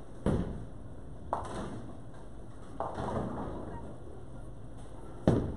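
Bowling balls and pins striking in a bowling alley: four sharp, echoing bangs a second or more apart, the third a longer clattering crash of pins going down and the last the loudest.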